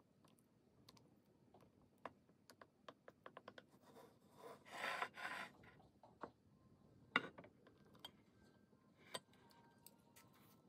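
Faint clicks and light taps of chopsticks against a soup bowl as the soup is stirred, including a quick run of taps a few seconds in. A brief soft hiss comes around the middle, and a single sharper knock of tableware a couple of seconds later.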